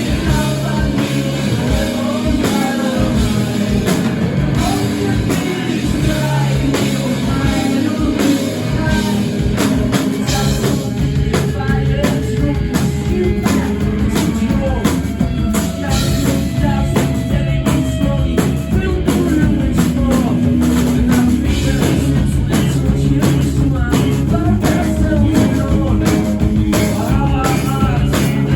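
Rock band playing: drum kit, guitar and singing, loud and continuous.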